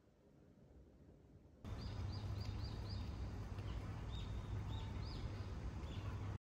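Outdoor ambience that starts about a second and a half in: small birds chirping in short, quickly repeated calls over a low steady rumble. It cuts off suddenly near the end.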